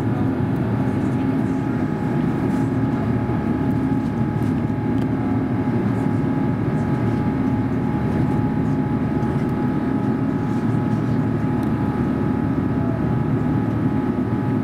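Airbus A350-941 cabin noise in flight after cloud break, heard from a window seat: an even rush of air with a steady hum and a few thin constant whines from its Rolls-Royce Trent XWB-84 engines.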